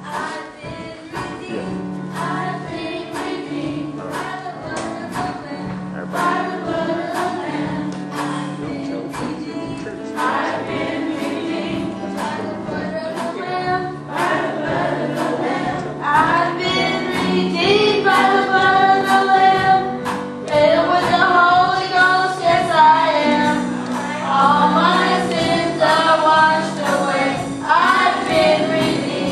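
Children's gospel choir singing over instrumental accompaniment with a steady beat and a bass line. The voices swell and grow louder about halfway through.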